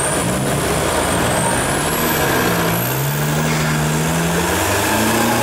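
Off-road truck engine running in deep mud, its revs rising and falling through the second half, over a steady noisy rumble. A thin high whine glides upward in pitch over the first half.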